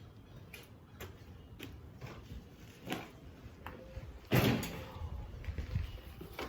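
Light clicks and knocks, with one louder thump about four seconds in, as of objects being handled and set down.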